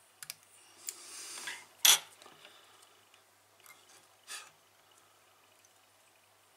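Fly-tying scissors snipping off the tag end of the Fritz close to the hook: one sharp snip about two seconds in, after a moment of rustling handling, with a short scrape a couple of seconds later.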